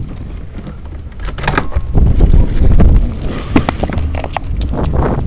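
Handling noise and sharp clicks of a window frame as a window is opened. A low rumble of outdoor air or wind on the microphone grows louder about a second in.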